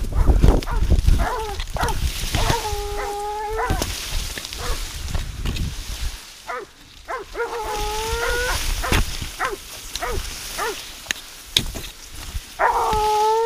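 Hunting dogs baying at a wild boar: long, drawn-out howls of about a second each, three of them roughly five seconds apart, with shorter yelps between. Sugarcane leaves rustle and scrape close by throughout.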